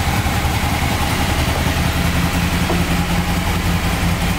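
Honda VFR800 VTEC's 90-degree V4 engine idling steadily.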